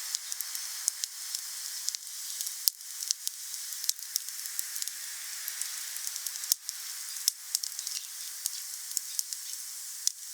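Wood fire burning, with a steady hiss and frequent sharp crackles, and a few louder pops among them.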